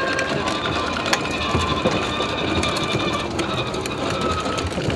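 Battery-powered ride-on toy BMW i8 driving on a concrete sidewalk: its electric motors and gearboxes whine steadily over the rumble and clatter of hard plastic wheels, with a towed plastic tricycle rolling behind.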